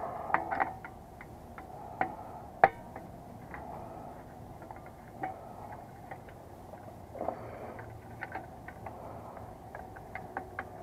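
Scattered small metallic clicks and ticks of a screwdriver and wires being worked at the terminals inside a metal A/C disconnect box, with one sharper click about two and a half seconds in and a quick run of clicks near the end.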